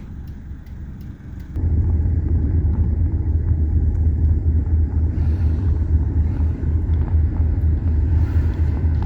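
Car driving, heard from inside: a steady low road rumble that jumps abruptly louder about one and a half seconds in and then holds steady.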